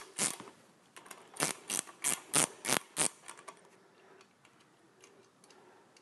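Ratchet wrench clicking in an even rhythm, about three clicks a second, as a 10 mm nut on the front fork is backed off. There is a click just after the start, then a run of six from about a second and a half in, then only faint ticks.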